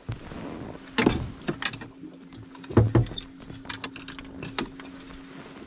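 Footsteps and knocks on a fishing boat's deck: several sharp thumps, the loudest about a second in and near three seconds in, over a steady low hum.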